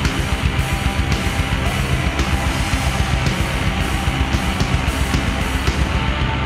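Black metal recording: heavily distorted electric guitars over fast, steady drumming, a dense wall of sound without vocals in this stretch.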